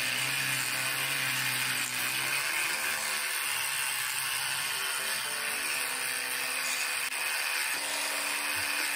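Oscillating electric toothbrush running steadily with a buzzing whir, its round head scrubbing a model locomotive chassis clean in soapy water.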